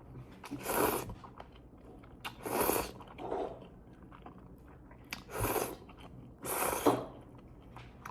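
A person eating jjampong noodle soup close to the microphone: chewing, with about five short noisy bursts a second or two apart.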